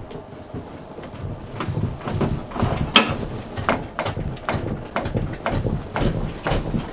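Footsteps walking at about two steps a second, short knocks with a dull thump beneath each, starting about a second and a half in.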